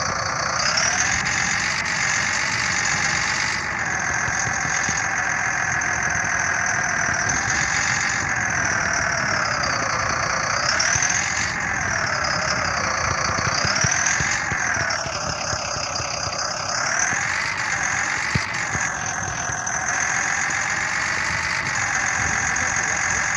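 Radio-controlled model truck or excavator running: a continuous motor whine whose pitch rises and falls every couple of seconds as the throttle changes.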